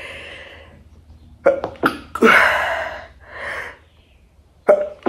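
A woman sneezing twice, about two seconds in and again near the end, with sharp catching in-breaths before the first sneeze. These are hay fever sneezes.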